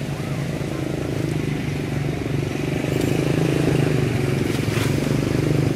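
An engine running steadily at an even, low pitch, getting somewhat louder through the first half, with a couple of faint clicks.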